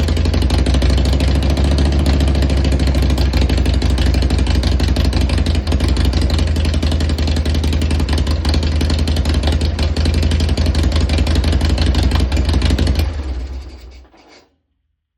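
Harley-Davidson Shovelhead V-twin engine running steadily on its first cold start after a top-end rebuild, then shutting off and dying away about 13 seconds in.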